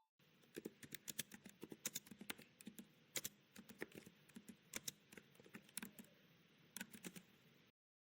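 A run of light, irregular clicks and taps, several a second, over a faint steady hiss, stopping abruptly near the end.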